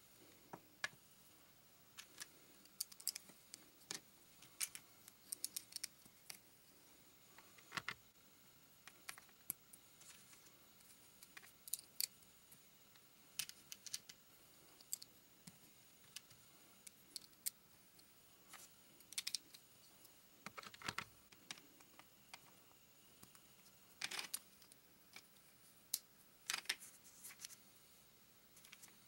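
Plastic LEGO bricks clicking and snapping as they are handled and pressed together, in scattered sharp clicks at irregular intervals.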